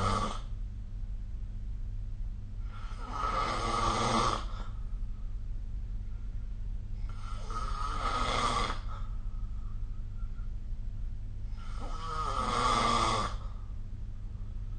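A sleeping person snoring: the end of one snore at the start, then three long snores about four and a half seconds apart. A steady low hum runs underneath.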